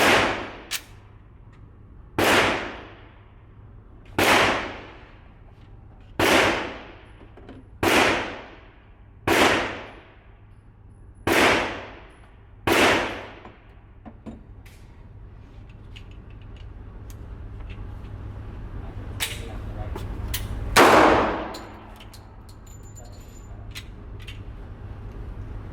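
Pistol shots fired one at a time, each with a long ringing tail: eight shots about every one and a half to two seconds, then after a pause a few small clicks and one more shot about 21 seconds in.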